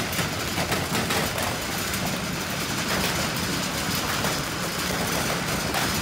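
Heavy hailstorm: a dense, steady roar of hailstones pelting down, made of countless individual clicks and taps as they strike the ground.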